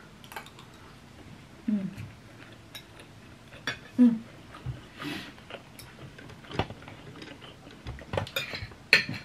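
Metal forks clicking and scraping against ceramic plates as two people eat, in scattered light clinks. There are short low voice sounds from a diner at about two and four seconds, and a quick run of clinks near the end.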